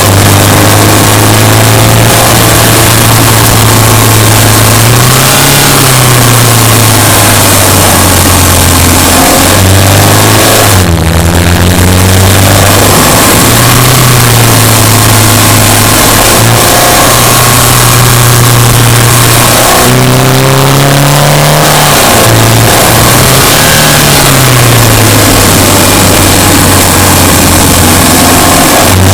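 Subaru Impreza Sport's flat-four boxer engine, loud, running under way with the revs rising and falling several times, over a steady rushing noise.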